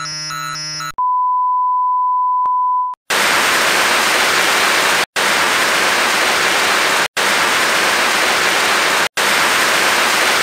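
Electronic sounds: a short chord of synthetic beeps, then a steady high beep for about two seconds with a small click in it. Then loud hiss of static comes in stretches of about two seconds, each broken by a brief gap.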